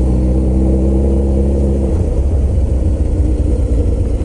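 Suzuki GSX-R1000's inline-four engine running at a steady low note as the motorcycle slows. About two seconds in, the engine tone fades under a rough low rumble of wind and road noise.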